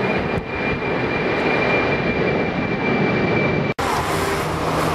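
Jet airliner engines running steadily, a loud even noise with a high steady whine. About four seconds in, the sound breaks off abruptly and gives way to a different, lower steady hum.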